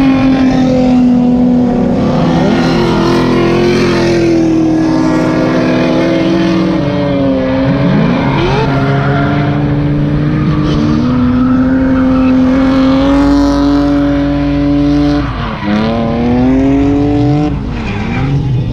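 Drift cars' engines held at high revs as they slide through a corner. The pitch stays steady, then dips and climbs again a few times, over a haze of tyre noise.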